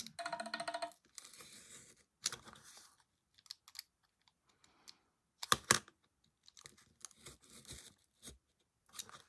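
Craft knife cutting a slit into the backing of a small old frame: intermittent scraping and crunching. There is a brief squeak at the start and a couple of sharp clicks about five and a half seconds in.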